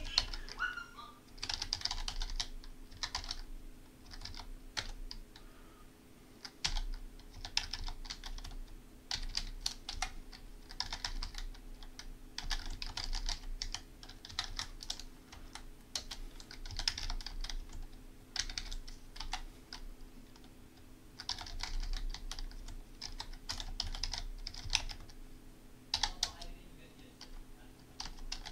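Typing on a computer keyboard: bursts of rapid keystrokes separated by short pauses, over a steady low hum.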